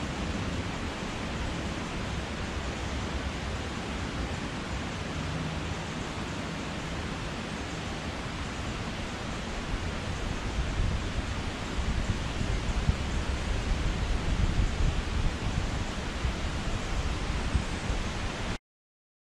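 Steady outdoor hiss of a forest glade, with a gusty low rumble of wind on the microphone building from about halfway through; the sound cuts off suddenly just before the end.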